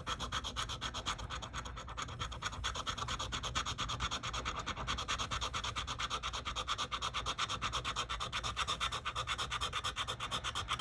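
A metal scratcher disc scraping the coating off a lottery scratch ticket in rapid, even back-and-forth strokes.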